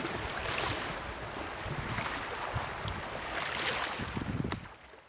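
Small waves lapping and splashing against a stone shoreline, with wind buffeting the microphone. The sound fades out near the end.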